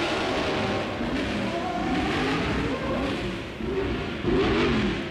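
Racing-car engines at a circuit: a steady rushing noise with engine notes that rise and fall in pitch as cars go by.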